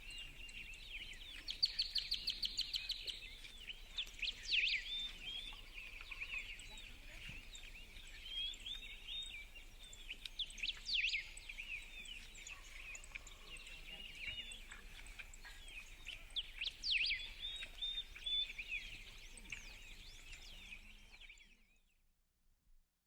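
Several birds chirping and calling together in a dawn chorus, over a faint steady hiss, with one rapid trill about two seconds in. It fades out near the end.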